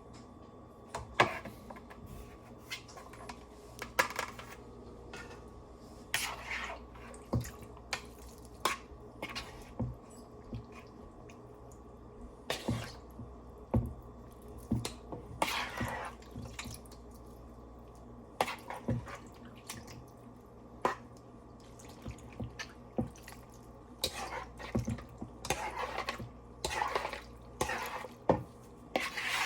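Lemon juice dripping and splashing into a bowl as shrimp are moved across, with irregular clinks and scrapes of a spatula against the bowl.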